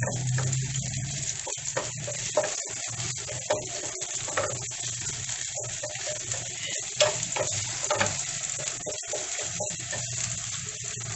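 Ginger frying in hot olive oil in a pan, a steady crackling sizzle, with scattered clicks of stirring.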